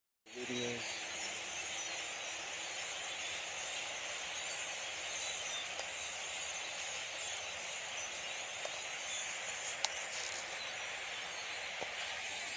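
A very large flock of birds calling all at once, a dense, unbroken wall of chatter that holds steady throughout. A sharp click stands out about ten seconds in.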